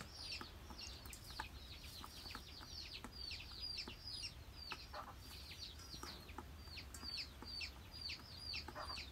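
Chicks peeping: a faint, steady stream of short, high, falling peeps, several a second and overlapping, with the odd lower cluck.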